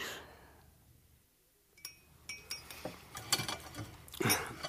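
Near silence for about two seconds, then light clinks of glass and cutlery at a table, a few scattered taps and chinks with brief ringing.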